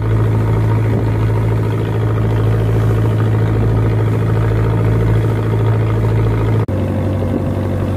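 Small wooden fishing boat's engine running steadily under way, a constant low hum. It breaks off for an instant near the end and then carries on with a slightly different tone.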